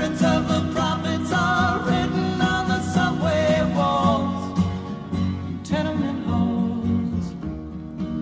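Folk song on acoustic guitar with sung vocals: the voices carry about the first four seconds and then fall away, leaving the strummed guitar.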